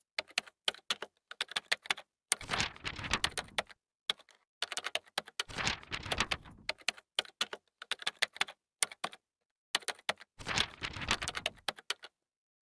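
Typing on a computer keyboard: irregular quick key clicks, bunching into faster spells a few times with short pauses between.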